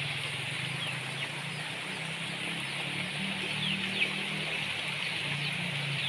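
Rural outdoor ambience: a steady low hum and an even high hiss, with a few faint, short, downward-sliding bird chirps.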